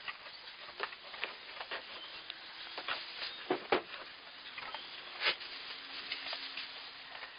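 Newborn fainting goat kids' small hooves scuffing and tapping in straw bedding and against the pen wall: irregular light rustles and clicks, with a few sharper taps in the middle.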